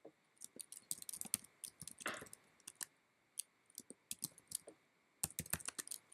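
Typing on a computer keyboard, quick runs of key clicks with a few short pauses, as details are entered into a web form.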